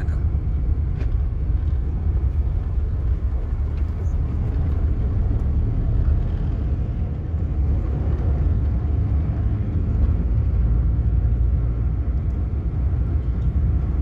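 Steady low rumble heard inside a moving car's cabin: road and engine noise of the car driving slowly along a town street.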